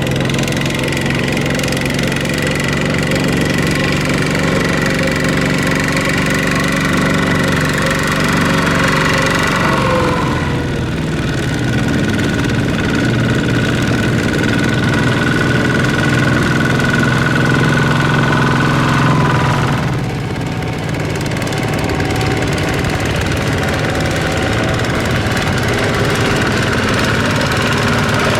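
Tractor engine running steadily, its pitch and level dipping briefly twice, about ten and twenty seconds in.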